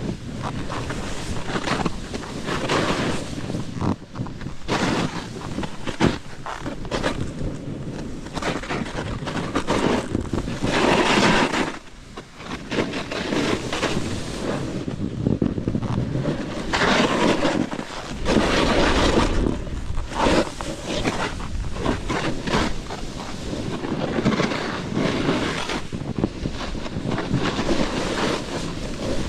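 Wind buffeting the microphone, mixed with a snowboard's base and edges scraping and hissing over packed snow, surging and easing as the board turns.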